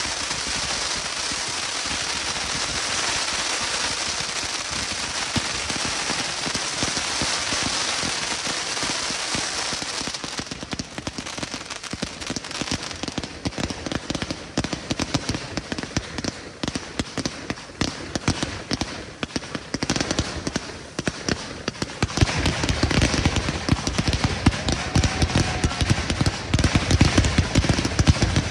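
Fireworks display: for the first ten seconds a dense, steady crackling hiss. Then rapid sharp pops and crackles, and from about twenty-two seconds a louder, fast barrage of launches from a ground battery firing many comets at once.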